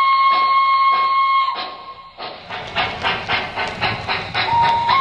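Sound system of an MTH O-scale EST Class 241A steam locomotive model blowing its steam whistle in one long, steady note over a regular chuff. The whistle stops about a second and a half in. The chuffing runs on alone, with wheel rumble on the track, until the whistle sounds again near the end, starting low and stepping up in pitch.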